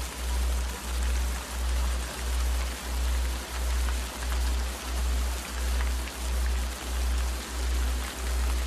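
Sleep-meditation background soundscape: steady rain with fine crackling drops, under a deep low tone that pulses evenly a little under twice a second.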